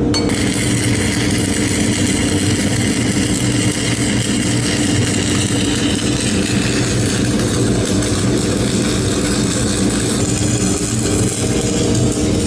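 Stick welding arc from a 7024 electrode, crackling and sizzling steadily as the final cap stringer is laid on thick steel plate, with a steady low hum underneath.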